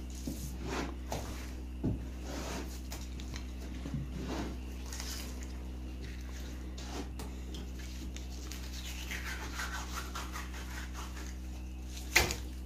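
A knife scraping and slicing through a fish fillet on a wooden cleaning table in short, irregular strokes, with one sharp knock near the end. A steady low hum runs underneath.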